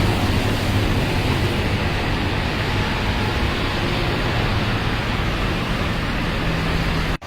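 Steady rushing din of a busy street with traffic hum, broken by a short dropout at a cut near the end.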